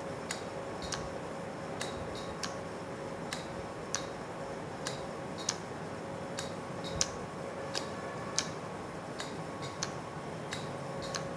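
Microneedle radiofrequency (MNRF) handpiece firing shot after shot against the skin of the face: sharp, light clicks, about one or two a second in an uneven rhythm, each one a pulse of needles delivering RF energy. Under the clicks runs a steady faint hum.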